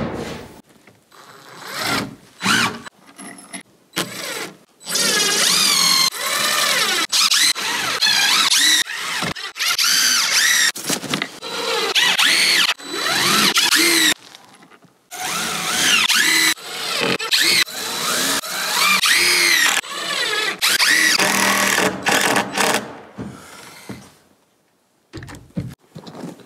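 Power drill running in two long runs of several seconds each, its pitch wavering up and down. There are a few short bursts of the drill near the start and near the end.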